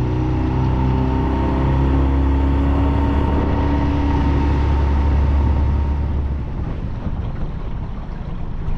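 Small tiller-steered outboard motor running under way, pushing an aluminium dinghy, with wind on the microphone. About six and a half seconds in the engine sound drops away, leaving wind and water noise.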